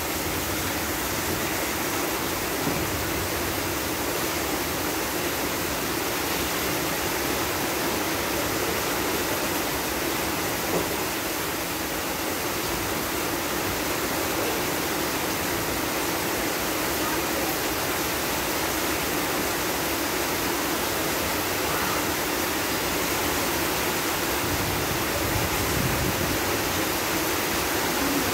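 Heavy rain pouring steadily, a continuous even hiss of downpour.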